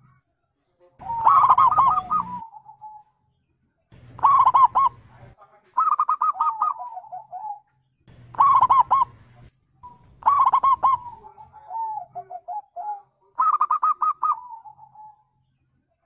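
Zebra dove (perkutut) singing: six phrases of quick, staccato cooing notes, each trailing off into a lower, softer run of notes, with short pauses between phrases.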